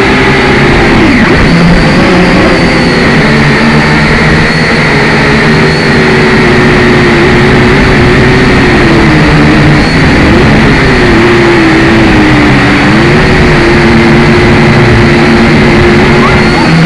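Syma X5C quadcopter's small electric motors and propellers whining steadily and loudly, the pitch dipping and rising as the throttle changes, notably about a second in and again around ten and twelve seconds in.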